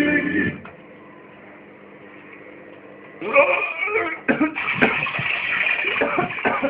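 Music cuts off about half a second in, leaving a faint hum. From about three seconds in, a person's voice makes rough, irregular rasping noises.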